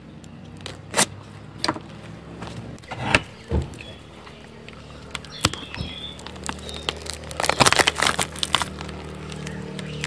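Scattered sharp knocks and clicks over a steady low hum, with a burst of rapid clatter about three-quarters of the way through.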